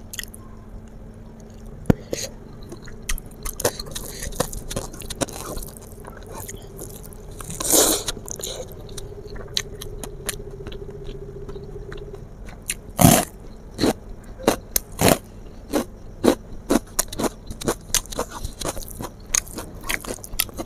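A person eating river snail curry close to the microphone: chewing and biting, with many short sharp clicks and smacks. There is a longer noisy sound about eight seconds in and a loud sharp one about thirteen seconds in.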